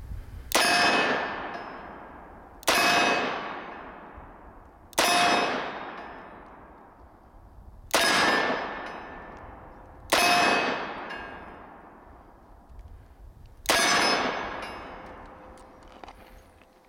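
Six shots of .357 Magnum from a Smith & Wesson 586 Classic 4-inch revolver fired one-handed at an unhurried pace, two to three and a half seconds apart. Each sharp report is followed by a long ringing decay.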